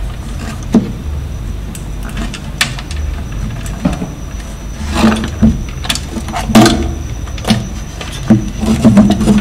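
Irregular clicks and knocks of cable connectors being plugged back into a subwoofer's power supply board and the unit being handled, over a steady low hum.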